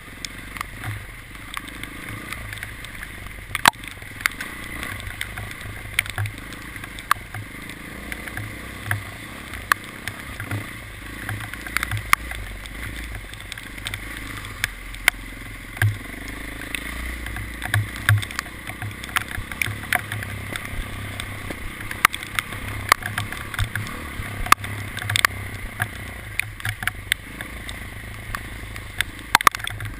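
A vehicle running steadily with a low rumble, and irregular sharp ticks and knocks several times a second over it.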